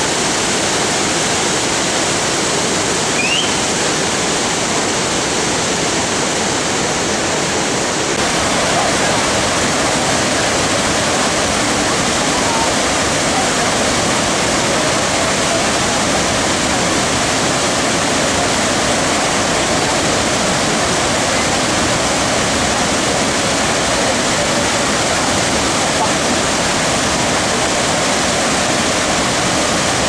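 Waterfall in full monsoon flood: a steady, loud rush of falling and churning water, growing a little louder and fuller about eight seconds in.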